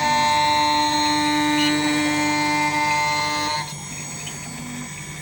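Desktop CNC engraving machine running with a steady whine that cuts off about three and a half seconds in, leaving a quieter low hum.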